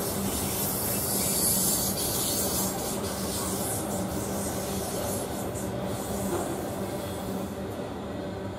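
Intermodal freight train rolling past, its flatcars loaded with highway trailers: a steady rumble and hiss of steel wheels on the rails, easing off slightly near the end.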